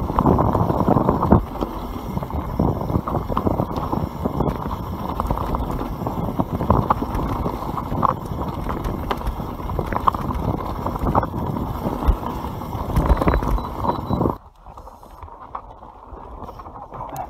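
YT Capra enduro mountain bike riding fast down a dirt trail: tyre noise with the chain and frame rattling and knocking over bumps, and rushing air on the microphone. About fourteen seconds in it cuts abruptly to a quieter ride on a different stretch of trail.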